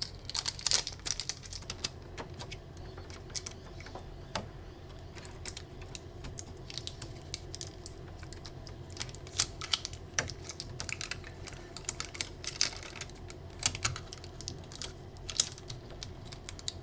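Irregular small clicks and taps of hands working on a 3D printer's print head, over a steady low hum.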